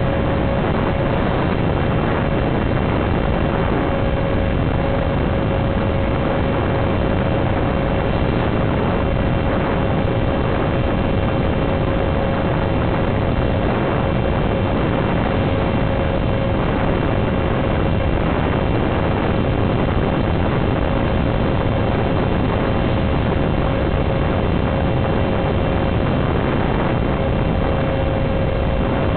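Steady rushing noise with a constant, unchanging hum, the sound carried on an FPV model plane's analog video link in flight.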